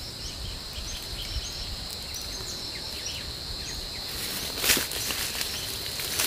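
Insects buzzing in one steady high-pitched drone, with a sharp rustle of leaves and twigs as a branch is handled about four and a half seconds in.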